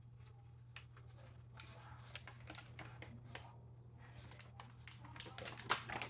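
Faint rustling and light, irregular clicks of paper and plastic packaging being handled, over a steady low hum.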